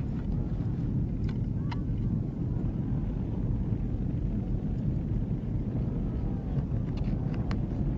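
Steady low rumbling outdoor ambience, with a few faint ticks about a second in and again near the end.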